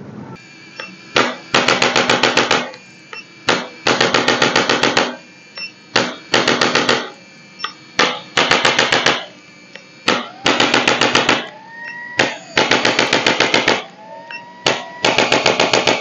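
Handheld electric chiropractic adjusting gun pressed against the back, firing rapid clicking thrusts at about ten a second. The thrusts come in bursts of about a second, repeated every second or two, about eight bursts in all.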